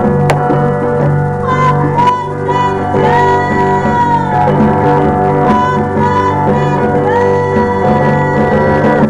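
Live band music led by electric guitar, with long held notes that slide into pitch over a steady bass line.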